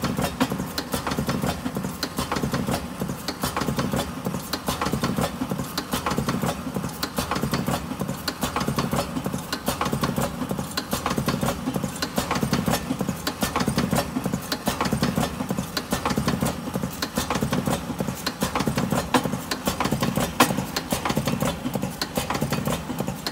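Automatic cigarette tube-filling machine running continuously, its mechanism clicking in a fast, even rhythm over a steady motor hum.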